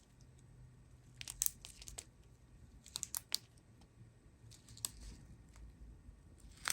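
Small plastic bags of diamond-painting drills being handled, crinkling faintly, with a handful of scattered sharp crackles.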